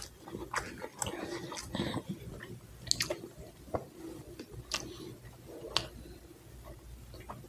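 A man chewing a mouthful of double cheeseburger, with wet, squishy mouth sounds and a sharp smack or click about once a second.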